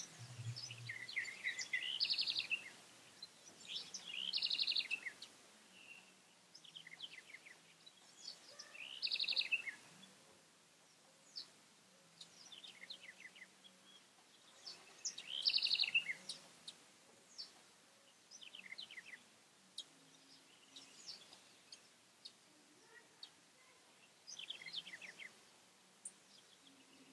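Songbird singing outdoors: a short, fast trilled phrase repeated every few seconds, with scattered chirps in between.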